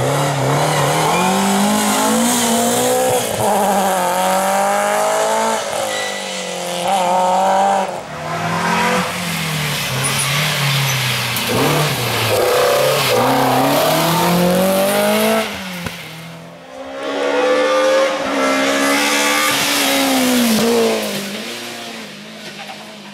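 BMW M3 rally car engine driven hard, its pitch climbing through the revs and dropping back over and over as the car shifts and lifts for corners. The sound dips briefly a little past halfway, builds again, then fades near the end.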